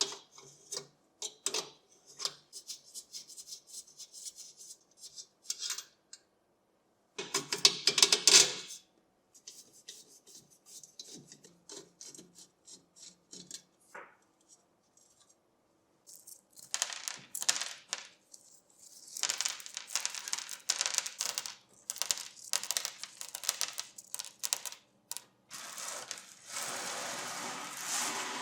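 Hand work on the metal parts of an old electric fan heater: scattered clicks and taps, a loud scrape lasting about a second and a half about eight seconds in, then longer stretches of close rubbing and scraping in the last ten seconds.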